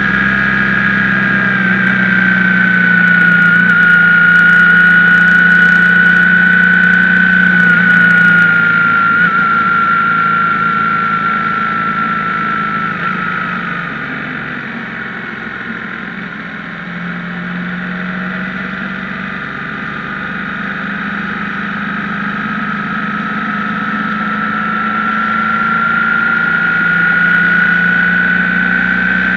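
BMW R1150GS air-cooled boxer-twin motorcycle engine running under way. It eases off through the middle and builds again near the end.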